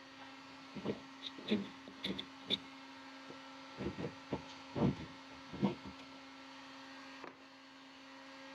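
A string of small knocks and clicks as parts are handled and fitted into place by hand, over a steady low electrical hum.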